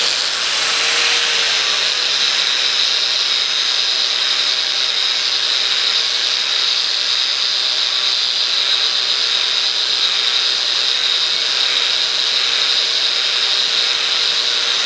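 Angle grinder with a polishing disc running against slowly turning copper pipe: a steady high whine over the hiss of the disc on the metal, settling to speed in the first second or two. The disc is polishing the copper to a clean, bright surface ready for a chemical darkening patina.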